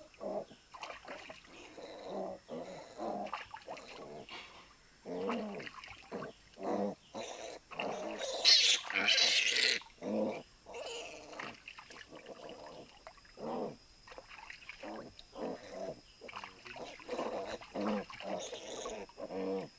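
Piglet squealing and grunting in many short cries while being dipped in a pool, with water splashing, loudest for a couple of seconds about eight seconds in.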